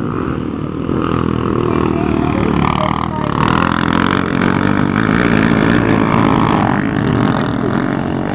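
Dirt bike engines revving as the motorcycles ride past, the pitch rising and falling with the throttle.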